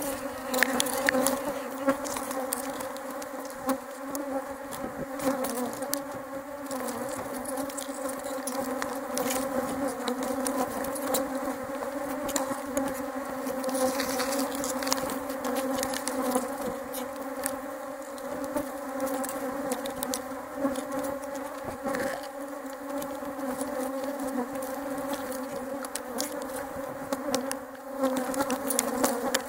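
Many honeybees buzzing around open hives, a steady dense hum of wingbeats close to the microphone, with scattered light clicks throughout.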